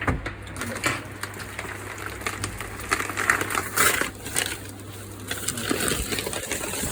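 Packaging crinkling and crackling in irregular bursts as a stuck-down piece of wrapping is peeled off by hand.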